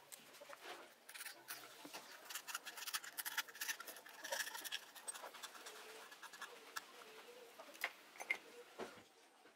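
Hobby knife scraping and cutting around the dust cap at the centre of a loudspeaker cone: a run of short scratches and clicks as the old cap is cut free.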